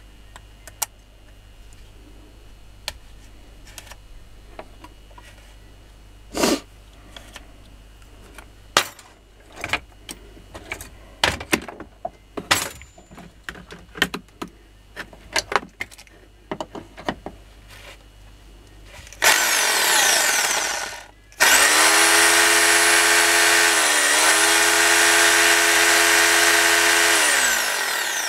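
Clicks and small knocks as parts of a Makita rotary hammer are handled. Then its electric motor is switched on for about two seconds, stopped, and run again for about six seconds with a steady, loud whine whose pitch dips briefly in the middle. It stops near the end, a test run during the repair.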